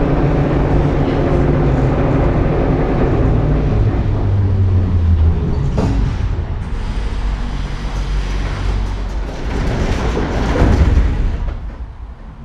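Metro train heard from inside the passenger car, running with a steady low rumble and slowing as it brakes into a station. The motor's low tone falls in pitch partway through, the noise swells briefly near the end, then dies away as the train comes to a stop.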